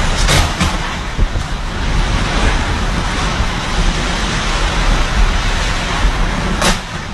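Storm wind from a typhoon rushing and buffeting the microphone, a loud steady roar with a deep rumble and a few sharper gusts, one about a second before the end.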